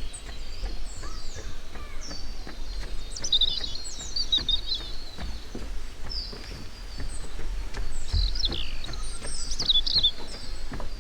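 Several wild birds chirping and trilling in short high calls, busiest in two flurries about a third of the way in and near the end, over a steady low rumble.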